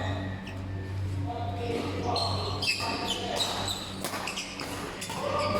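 A basketball bouncing on an indoor court as a game is played, with scattered knocks and short high squeaks echoing in a large hall, and voices in the background.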